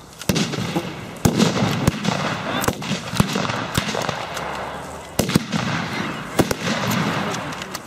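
Small arms firing blanks in a staged battle: single sharp shots cracking at irregular intervals, from a couple of seconds apart to two in quick succession, over a steady background rush.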